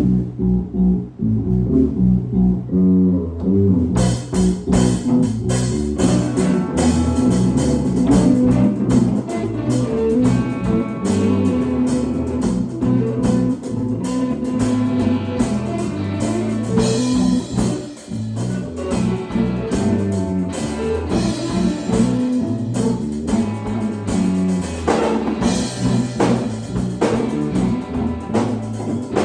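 Live band jamming an improvised groove: a bass line and guitar play alone at first, then a drum kit comes in about four seconds in and the band plays on together.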